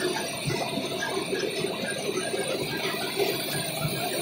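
Mineral-processing plant machinery running with a steady metallic rattle and clatter.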